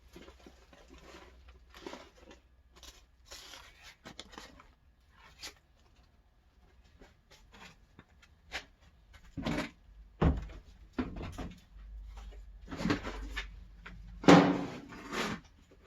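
Plastic worm bins and their damp bedding being handled: scattered rustling and light clicks, then several louder hollow knocks and thumps in the second half, the loudest near the end.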